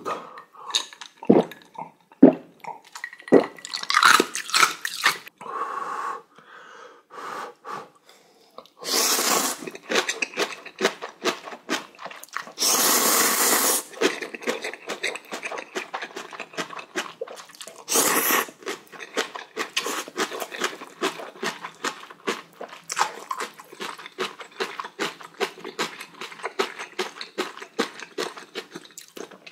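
A person gulping water, then slurping mouthfuls of instant ramen noodles and chewing. Three long, loud slurps stand out in the middle, with quick wet chewing clicks between and after them.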